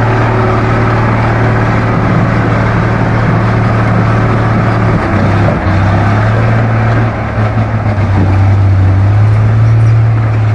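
M813 6x6 truck's Cummins 250 six-cylinder diesel running hard, pulling the loaded truck through deep mud up a slope. A steady low drone, dipping briefly twice around the middle.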